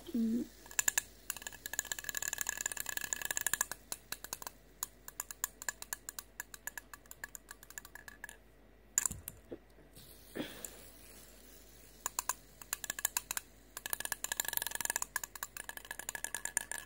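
A fidget spinner spun by hand, its bearing whirring and rattling with rapid clicks. The clicking comes in two busy spells, and a few handling knocks fall in between.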